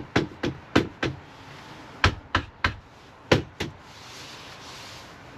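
A run of about ten sharp knocks in three quick groups, with pauses between: the wooden seat panels being knocked into position.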